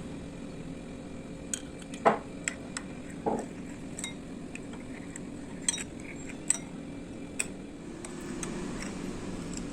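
Scattered clinks and taps of kitchen utensils against glass and dishes, about a dozen light knocks at irregular intervals. The loudest two come about two and three seconds in, each with a short ring.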